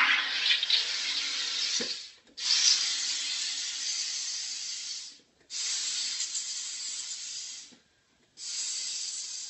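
Home soda maker forcing CO2 gas into a bottle of wine to carbonate it: a hiss in four long bursts of two to three seconds each, with short breaks between them.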